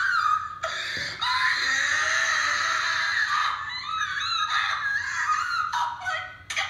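High-pitched screaming played back through a laptop's small speakers, thin with almost nothing in the low end: one long held scream, then shorter wavering cries.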